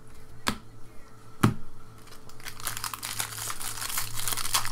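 Two sharp clicks as a stack of cards is handled, then from about two seconds in the crinkling and tearing of a foil trading-card pack wrapper being ripped open.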